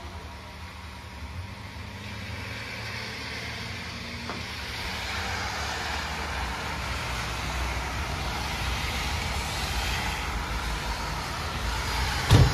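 Delivery box truck's engine running on the street, heard through an open front door, growing louder over several seconds. A single sharp thump comes near the end.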